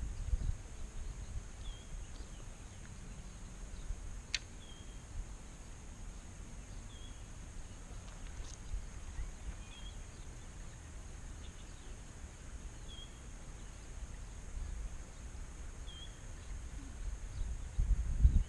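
A bird repeating a short high chirp every two to three seconds, over a low rumble of wind on the microphone and a steady high hiss. A single sharp click about four seconds in.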